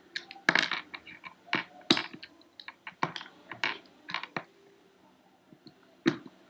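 Plastic Rubik's Cube pieces clicking and clacking as they are handled: irregular sharp clicks come thick and fast for about four seconds, pause, then one more click near the end.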